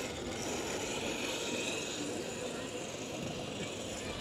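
Indistinct voices of people nearby over a steady outdoor background noise.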